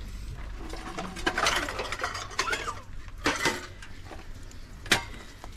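Dishes and utensils being handled: a few short clattering rattles and a single sharp click about five seconds in.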